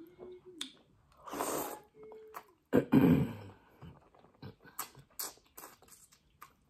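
Close-up eating sounds: a mouthful of fufu and spinach being chewed, with wet mouth clicks and smacks in the second half. Short hummed "mm" sounds near the start and around two seconds, a sharp breath through the nose about a second and a half in, and a louder throaty sound just before three seconds.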